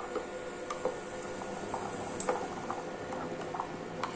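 Metal spoon stirring cream and melting chocolate chips in a plastic bowl over a pan of hot water, tapping lightly against the bowl several times, over a steady hum.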